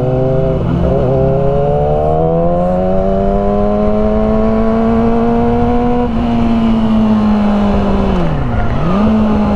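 Yamaha R6 sport bike's inline-four engine pulling under throttle, its note climbing slowly and then holding. Near the end the revs drop sharply for a moment and come straight back up.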